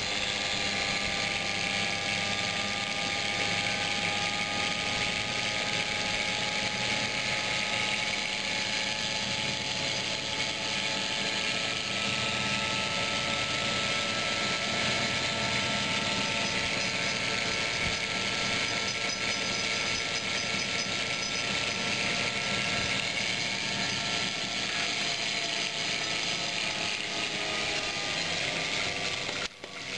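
Homemade generator rig spinning at steady speed: a continuous mechanical whir with several whining tones that drift slowly in pitch, with a brief break near the end.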